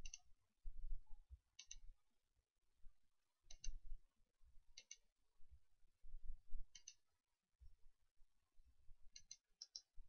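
Computer mouse button clicking about seven times at irregular intervals, each click a quick press-and-release pair, as points are placed one by one. Dull low thuds of the desk or mouse being handled come in between.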